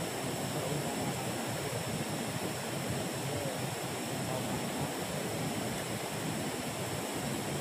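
Steady rushing of a river flowing over rocks, with a faint steady high-pitched tone above it.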